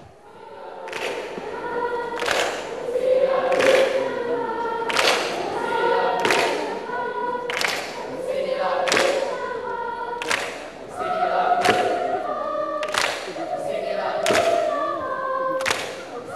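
A school choir of teenage boys and girls singing a welcome song in sustained, held notes, over a sharp beat struck about every 1.3 seconds.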